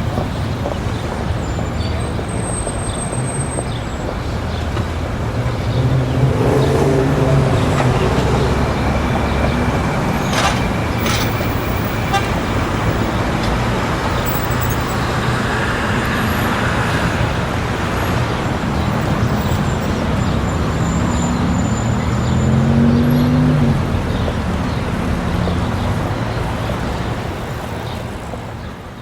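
City street traffic ambience: a steady wash of cars and engines passing, with occasional horn toots. It fades out at the end.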